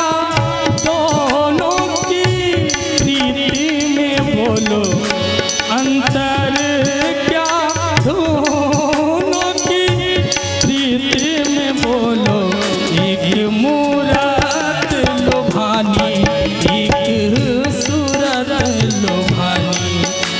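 Live Indian song accompaniment: a tabla played in a steady rhythm under a sliding, wavering melody line.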